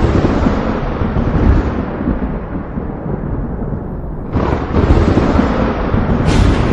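Thunder rumbling: one roll fades through the first few seconds, then a new clap breaks about four seconds in and rolls on, with another starting near the end.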